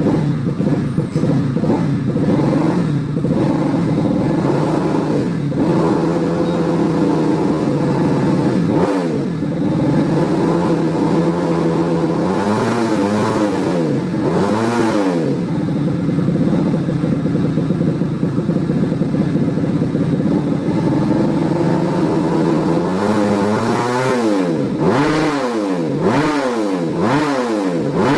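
130cc bebek (underbone) motorcycle engine fitted with an original Yamaha YZ magneto, running at a steady fast idle. The throttle is blipped twice around the middle and then in a quick run of short revs near the end.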